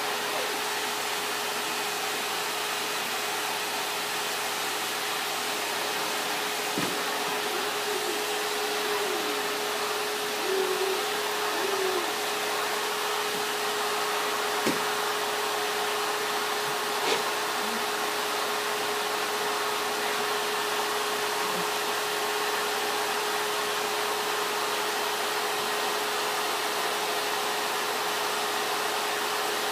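Steady whooshing hum of a running machine, like an appliance or fan, with a constant low tone and no change in level. A few faint light knocks come through, about 7, 15 and 17 seconds in.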